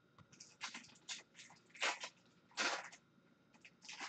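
Hockey card packs being torn open and handled: wrappers crinkling and cards sliding against each other in a string of short rustles, with two longer, louder swishes near the middle.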